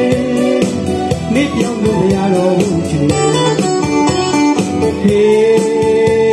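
A man singing into a microphone over an electronic keyboard accompaniment with a steady drum beat from the keyboard's rhythm section.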